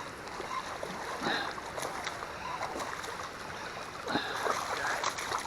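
Steady rush of high, fast-flowing river water, with faint brief sounds about a second in and again around four seconds in.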